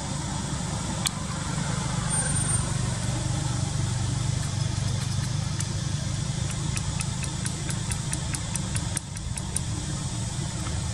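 Steady low rumble of an idling engine, with a run of faint clicks in the second half.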